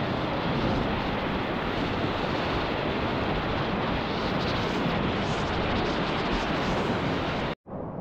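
Steady rushing noise of river water around the whitewater kayak, with wind buffeting the camera microphone. It cuts off abruptly near the end, then goes on more quietly.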